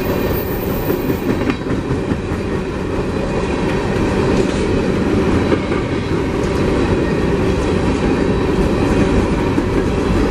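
Coal train's hopper cars rolling past: a steady rumble of steel wheels on rail, with occasional clicks as wheels cross rail joints.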